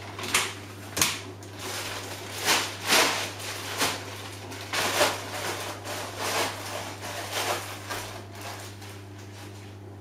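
Samsung Eco Bubble front-loading washing machine mid-wash: the drum tumbles the laundry with irregular sloshing swishes, roughly one or two a second, over a steady low hum. The swishing eases off near the end.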